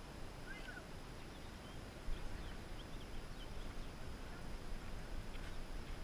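Low, steady rumble of wind and movement on an action camera strapped to a dog's back, with a few faint, short high chirps about half a second in and again around the middle.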